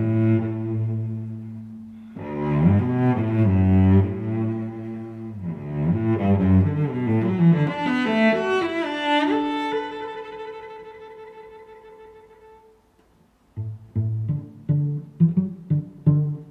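Background instrumental music on low bowed strings, playing long held notes that fade away about thirteen seconds in. A new passage of short, quick plucked notes starts right after.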